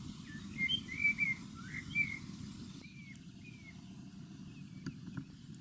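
A small bird chirping in short, bright notes: a quick cluster in the first two seconds and two more about three seconds in, over a steady low background rumble.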